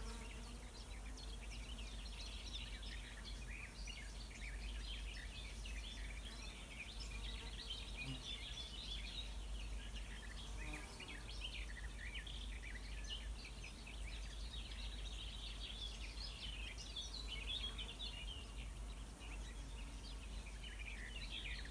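Several songbirds singing at once: many short, high chirps and trills overlapping throughout, over a low steady rumble of breeze.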